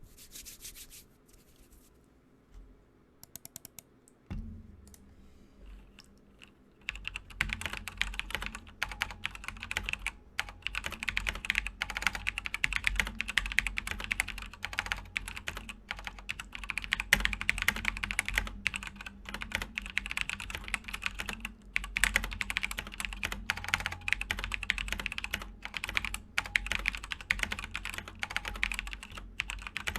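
Fast typing on a Razer BlackWidow TE Chroma v2 tenkeyless mechanical keyboard with Razer Yellow linear switches. A few scattered key clicks come first, then a steady stream of rapid keystrokes from about seven seconds in.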